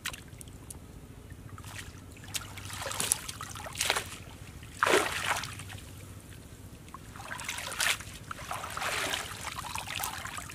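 Water splashing and sloshing as a wet cast net is hauled up out of shallow pond water, with water trickling off the mesh. Several short splashes, the loudest about five seconds in, and another run of splashing near the end.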